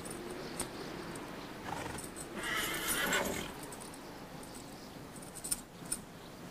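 A horse whinnies once for about a second, midway through, over a quiet outdoor background. Two sharp clicks follow near the end.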